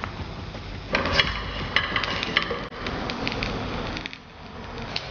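A serving ladle scooping cooked rice from a pan into a ceramic serving dish: a run of scrapes and small clicks as it knocks against the pan and the dish, busiest in the middle and thinning out near the end.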